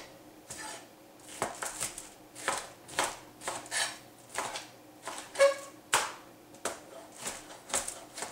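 Chef's knife slicing a red bell pepper into strips on a plastic cutting board: irregular knocks of the blade on the board, about two a second.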